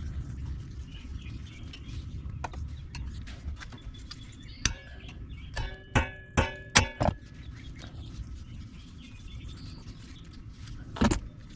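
Hammer blows on a hand impact driver set in a stuck Phillips-head rotor screw: about six sharp metallic strikes with a ringing tone in quick succession, starting about five seconds in, then one more strike near the end. Each blow drives the bit inward and twists it to break the seized screw loose.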